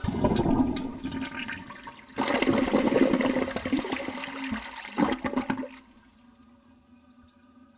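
Water splashing and sloshing in a white plastic tub in loud surges, which stop about six seconds in and leave a faint steady hum.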